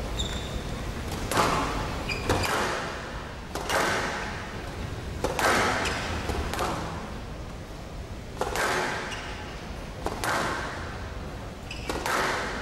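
Squash ball being struck by rackets and hitting the walls in a rally, about eight sharp hits roughly every second and a half, each echoing around the court. Short high squeaks of players' shoes on the court floor come in between.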